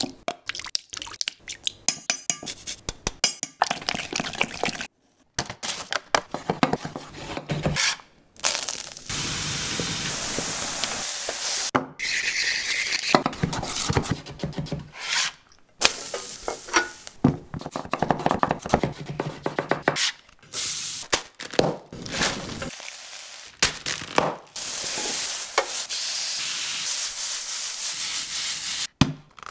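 A run of kitchen sounds: a spoon clinking as it mixes sauce in a stainless steel bowl, a knife chopping on a wooden cutting board, and meat sizzling as it is stirred in a hot pan. The sound alternates between bursts of sharp clicks and knocks and longer stretches of steady sizzling.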